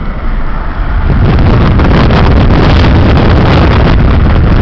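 Wind rushing and buffeting on the microphone, with road noise from a car moving at speed. It gets much louder about a second in and stays loud.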